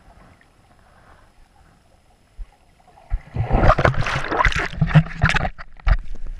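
Water splashing close to a GoPro camera, starting suddenly about three seconds in, loud and irregular with many sharp knocks; before that only a faint low rumble.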